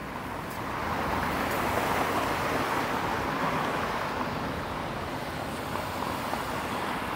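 Road traffic: a passing vehicle's tyre and road noise, swelling about a second in and then slowly fading.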